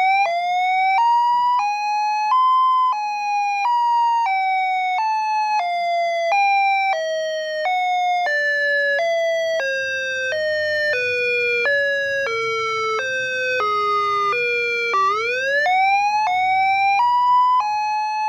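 Electronic siren tone played through a homemade speaker box: a two-note wail alternating high and low about twice a second, its pitch stepping slowly down, then sweeping back up about fifteen seconds in and stepping on again.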